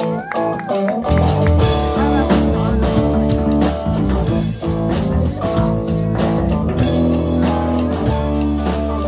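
Live band playing a song: guitar over bass notes and a steady beat.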